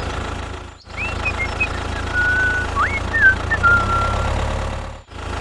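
Small tractor engine running with a steady low drone, cut off briefly twice. Thin whistling chirps glide up and down over it for a few seconds.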